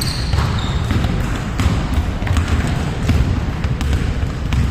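Basketball bouncing on a hard court floor, a run of repeated dull thuds.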